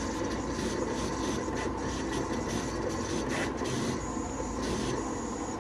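Mimaki CG60SL vinyl cutting plotter running a test cut: its motors whir steadily as the cutting head travels across the vinyl, with a thin high whine joining in about four seconds in.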